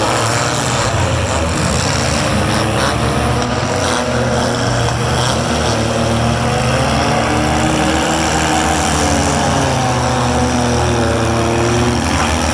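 Engines of several four-cylinder demolition derby cars running and revving together, their pitch rising and falling.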